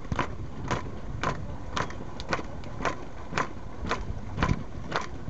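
A roadside crowd clapping together in a steady rhythm, a little under two claps a second, over the low running of cars rolling slowly past.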